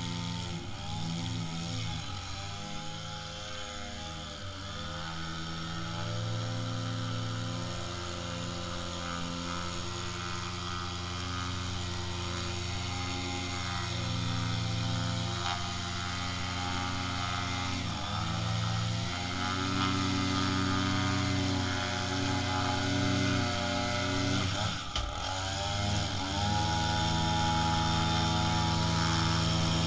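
Husqvarna 535LS two-stroke string trimmer running at high revs while edging a lawn. The engine dips in pitch for a moment about four times and comes back up. It grows steadily louder.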